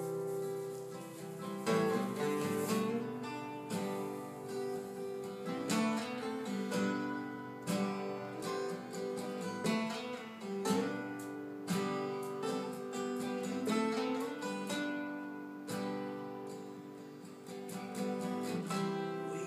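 Acoustic guitar strummed about once a second, with the chords ringing on between strums, in an instrumental passage of a song.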